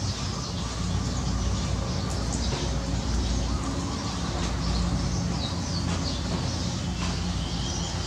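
Steady heavy rain, with runoff water pouring down in streams and splashing onto plants and gravel. A few short bird chirps sound faintly over the rain.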